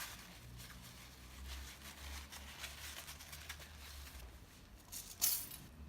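Tissue paper rustling and crinkling in short irregular bursts as a filled pita gyro is folded into a paper cone, with one louder crinkle about five seconds in.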